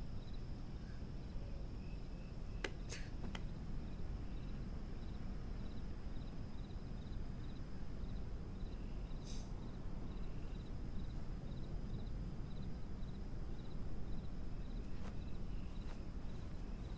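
Crickets chirping in an even rhythm, about two chirps a second, over a steady low background hum, with a few brief soft clicks.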